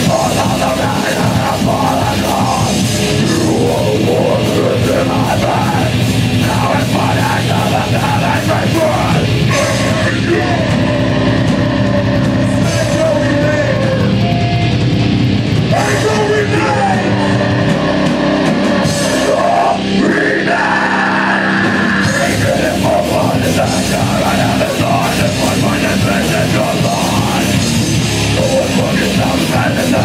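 A heavy metal band playing live at full volume, heard from within the crowd in the venue.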